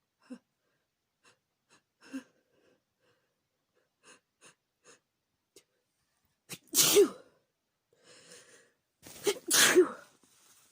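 A woman sneezing, set off by chhikni sneezing powder. A few faint sniffs and catching breaths come first. Then one loud sneeze about seven seconds in, and two more in quick succession just before ten seconds.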